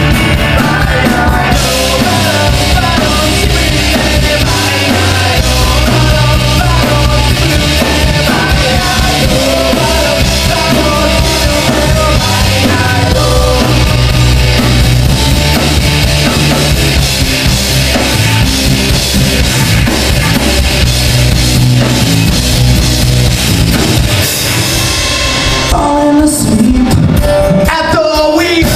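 Live rock band playing with singing: drum kit, acoustic and electric guitars and bass. Near the end the drums and cymbals drop out, leaving a thinner sound of guitar and voice.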